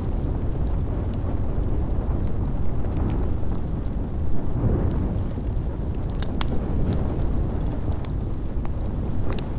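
Large fire burning: a steady low rumble of flames with sharp crackles and pops scattered through, swelling briefly a little past the middle.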